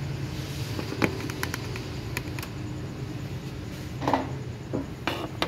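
A few light clicks and knocks from hands working at the oil filler cap on a Ford Ranger 3.2 diesel engine, about a second in, about four seconds in and again about five seconds in, over a steady low hum.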